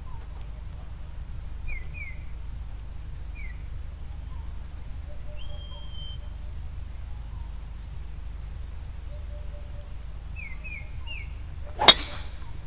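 Golf driver striking a ball off the tee: a single sharp crack near the end. Before it, birds chirp now and then over a low steady outdoor rumble.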